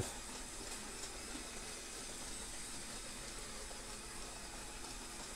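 Battery-powered Mould King QJ brick model locomotive with two electric motors running steadily around a circle of plastic track, heard as a faint, even hiss of motors and wheels.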